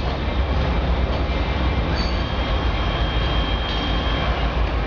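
Amtrak Pacific Surfliner passenger train pulling out, its cars rolling away with a steady low rumble and a faint, thin wheel squeal about halfway through.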